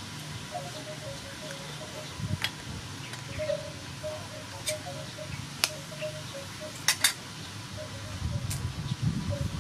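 Eggs tapped and cracked against the rim of a stainless steel mixing bowl: several sharp, separate clicks, with a quick double tap about seven seconds in.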